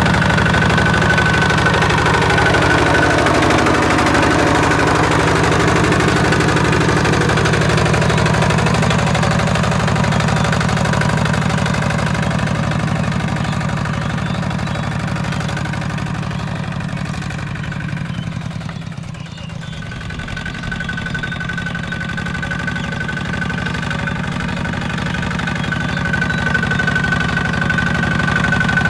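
Two-wheel walking tractor's engine running steadily under load as it pulls its cage wheels through a paddy field. It grows quieter for a couple of seconds about two-thirds of the way through, then comes back to full strength.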